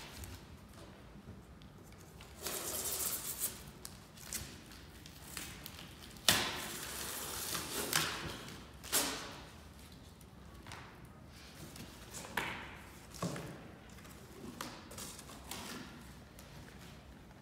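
Cardboard boxes being handled and opened: rustling and scraping of cardboard, a sharp knock about six seconds in, and a few lighter knocks later.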